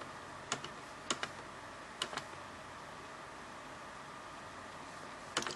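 Sharp clicks from working a ThinkPad laptop's controls: a few single clicks and quick pairs in the first two seconds, then a small cluster near the end, over faint steady hiss.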